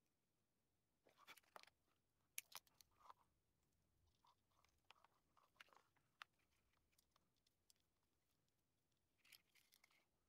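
Near silence with faint, scattered clicks and crinkles of hands handling and twisting thin insulated wires together.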